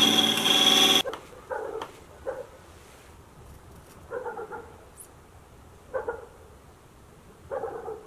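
Wood lathe running with a turning tool cutting, cut off about a second in. Then a dog barks in a string of short, separate barks, about seven in all.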